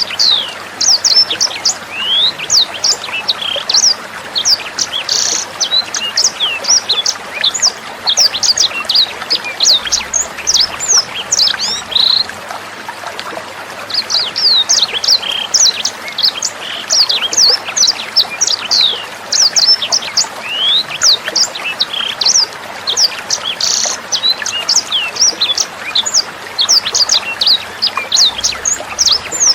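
Sanger bird singing a rapid stream of sharp, high chirps and whistled sweeps over steadily trickling water. The song breaks off for about two seconds near the middle, leaving only the water, then resumes.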